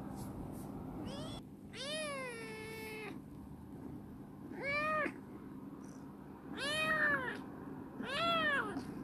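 Young kitten meowing four times, the first call long and drawn out with a falling pitch, the other three short.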